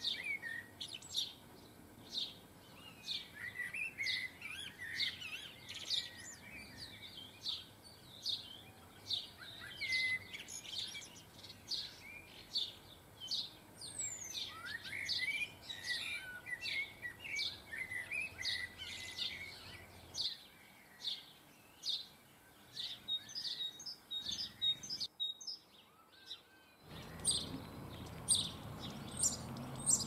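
Small garden songbirds chirping and twittering: a dense run of short, high calls. The birdsong breaks off for about two seconds near the end, then resumes over a low background rumble.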